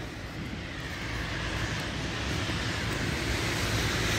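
Steady rushing noise of city traffic on a wet road, slowly growing louder.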